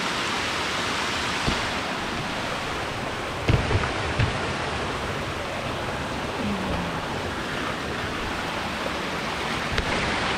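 Water running and splashing down a rocky, wooded hillside in small streams, a steady rushing hiss. A few dull thumps come about a second and a half in and again around three and a half to four seconds.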